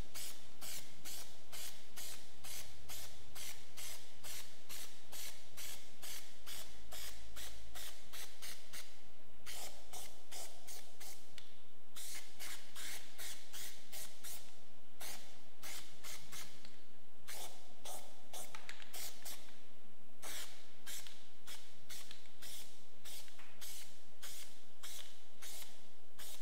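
Plasti Dip Glow aerosol spray can hissing in quick, short, repeated bursts as a coat is sprayed on, with a few brief pauses.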